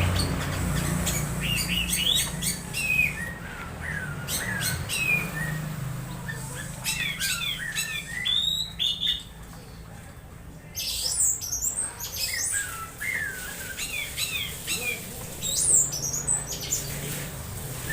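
Orange-headed thrush singing a fast, varied song of squeaky sweeping notes and chatter, with a short lull about ten seconds in.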